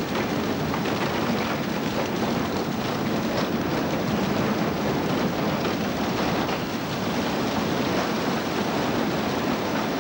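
A load of sugar beets pouring out of a tipping truck's raised body onto a concrete chute, a steady rushing rumble.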